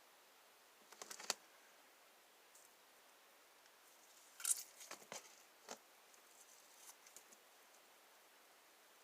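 Hands working a lump of stiff, over-activated homemade slime that will no longer stretch far: a few short, faint crackles and clicks about a second in, then a cluster of them around the middle, over near silence.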